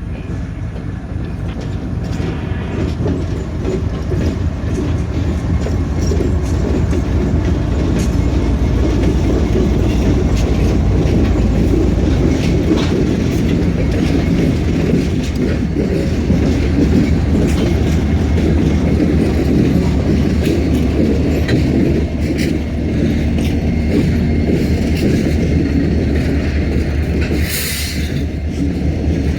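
Diesel freight locomotives and a train moving, with a heavy steady engine rumble and wheel clatter that swells over the first few seconds. A brief sharp high sound comes near the end.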